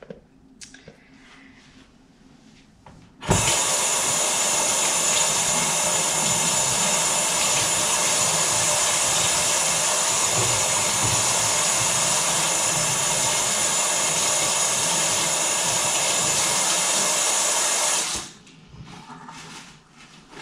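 Kitchen faucet turned on about three seconds in, water running steadily into a stainless steel sink as hands are rinsed, then shut off abruptly near the end. Soft rustling of hands being dried with a paper towel follows.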